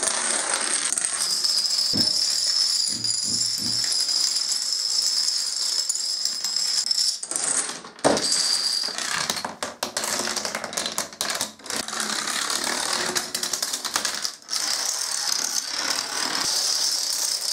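Dominoes toppling one after another in long chains: a fast, continuous clicking clatter of tiles knocking together on a wooden floor and a desk, with a single loud knock about eight seconds in. A steady high-pitched tone sounds under the clatter for the first several seconds.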